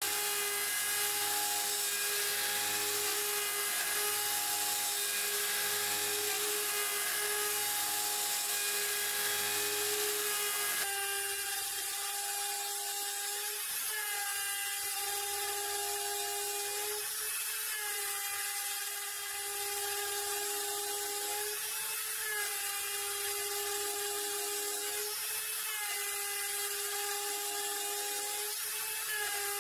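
Router spindle of a Mostly Printed CNC milling aluminium with an end mill, a steady high whine with many overtones. About a third of the way in the sound changes, and from then on the pitch dips briefly every three to four seconds.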